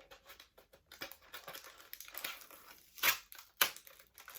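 Cardboard and paper packaging of an action figure being handled and opened: scattered rustling and small tearing sounds, with two louder, sharper rips a little after three seconds in.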